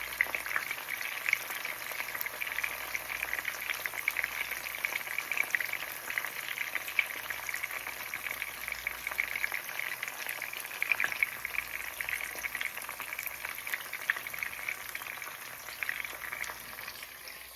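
Mushrooms frying in olive oil in a pan: a steady crackling sizzle that eases slightly toward the end.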